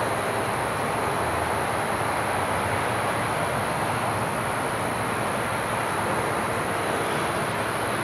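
Steady outdoor night ambience: a continuous, even rushing noise with a thin, steady high-pitched hiss above it.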